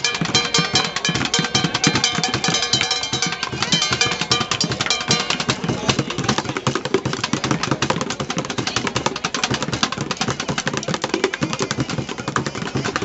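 Street bucket drumming: fast, dense strikes on buckets. A melody plays along over roughly the first half, then the drumming goes on alone.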